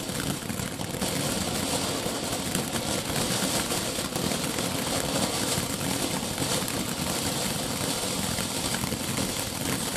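Ground fountain firework spraying sparks from its tubes, a steady dense sputtering hiss with a rapid flutter.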